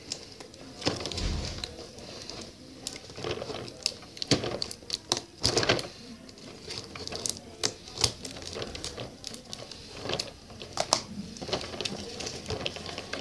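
Scissors snipping at a cardboard toy box while it is handled, giving irregular clicks, snips and crackles.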